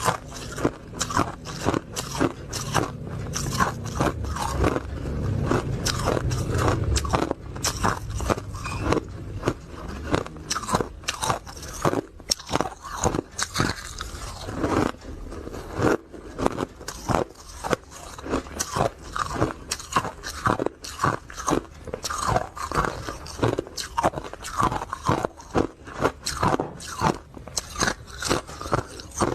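Close-miked crunching of hard ice being bitten and chewed: a fast, irregular run of sharp crunches throughout, with a low rumble under the first seven seconds or so.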